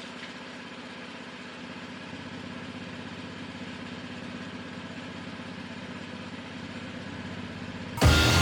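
Small engine idling steadily with an even, rapid pulse; loud music cuts in at the very end.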